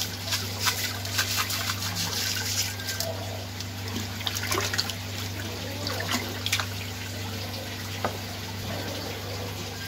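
Fish salt poured into an aquarium, pattering and splashing into the water, thickest over the first three seconds and then thinning to scattered splashes. Underneath is a steady low hum.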